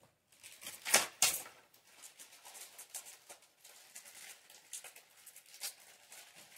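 Two sharp clacks about a second in, then a run of small irregular clicks and rustles: small hard plastic and metal parts being handled and sorted.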